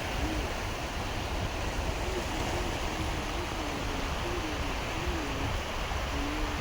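Steady rush of waves washing onto a lakeshore beach, with a faint wavering tone underneath.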